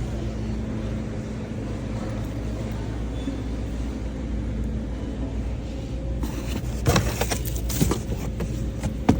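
Steady low rumble of a running vehicle engine, with several sharp clicks and rattles in the last few seconds.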